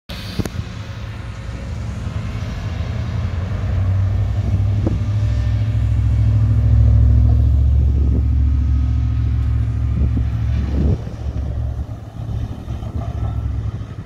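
Mack refuse truck with a McNeilus front-loader body driving by, its engine's low rumble building for several seconds and then falling off sharply about three-quarters of the way through.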